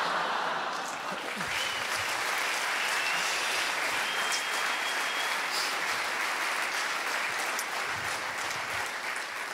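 Theatre audience applauding steadily after a punchline, dying away near the end.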